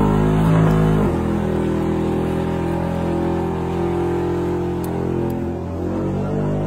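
Modified second-generation Chevrolet Camaro's engine held at high revs in a burnout, rear tyres spinning in their own smoke. The note drops a little about a second in, then holds steady.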